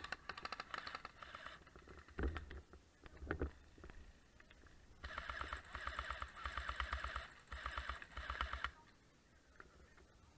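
Airsoft gun firing full-auto in rapid clicking bursts: a short burst at the start, then a longer one of about three and a half seconds from about five seconds in, with a brief break near its end. Two dull knocks come between the bursts.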